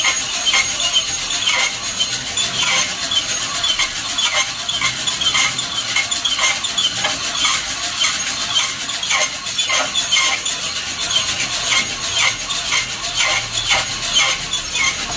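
Coffee beans tumbling and rasping inside a hand-cranked wire-mesh drum roaster as it turns, in a steady rhythm of about two swishes a second over a constant high hiss.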